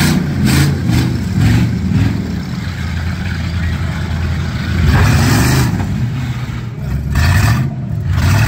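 V8 engines of demolition derby cars running hard and revving, with a rising burst of throttle about five seconds in.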